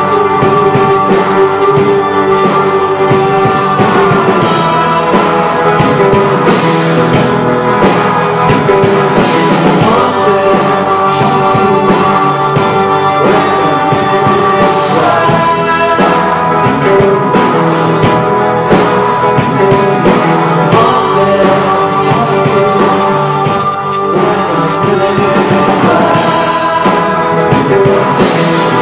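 Live rock band playing a song loud in a club: electric guitars, bass, keyboard and drums, with a singing voice over them.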